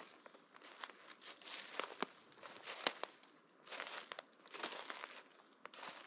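Footsteps crunching and rustling through dry leaf litter, an uneven series of sharp crackles with two longer rustles in the middle.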